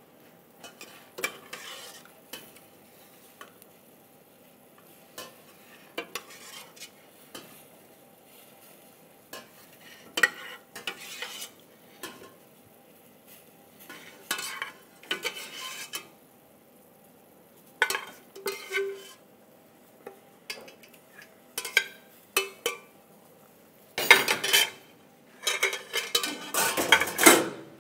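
A stainless steel ladle and spoon scraping and knocking against steel pots as thick tomato sauce is stirred and ladled. Scattered metallic clinks and clatters, with the busiest stretch near the end.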